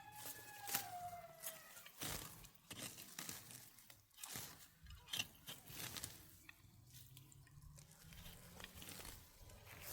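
Irregular crunching and crackling, with a short call near the start that falls in pitch.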